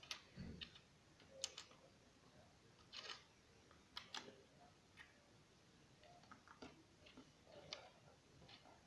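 Faint, irregular clicks and taps of plastic Lego bricks being handled and pressed together by hand, about ten scattered through.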